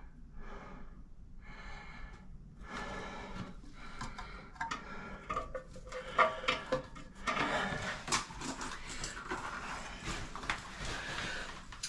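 A man's heavy breathing, short breaths in a steady rhythm, while he works. From about three seconds in, clicks and clatter of small parts being handled join it and grow louder in the second half.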